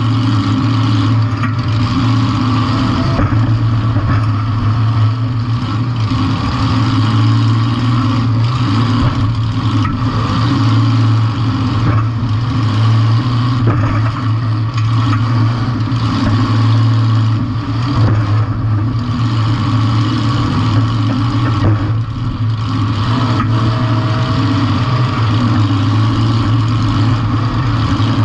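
Compact demolition derby car's engine running steadily at high revs, heard from a camera mounted on the car, with occasional knocks and rattles from the body.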